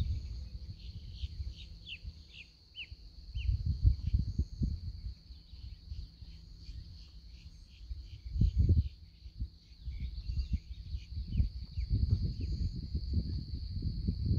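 A steady, high-pitched insect buzz beside a marsh, with a run of short falling bird chirps in the first few seconds. Irregular low rumbles of wind on the microphone come and go and are the loudest part, strongest about four seconds in, around eight and a half seconds, and through the last few seconds.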